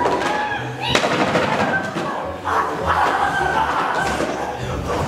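Voices of young stage actors, with a sharp knock about a second in.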